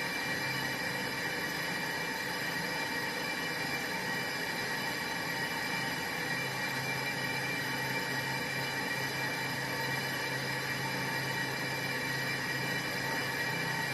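Brake drum/disc lathe running steadily, a constant machine noise with several steady whining tones. A low hum grows stronger about six seconds in.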